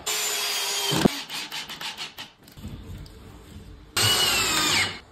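Hilti 22 V cordless drill-driver driving screws into a door frame: one run of about a second at the start, then a second run near the end whose whine drops in pitch as the screw goes through the hinge into the jamb.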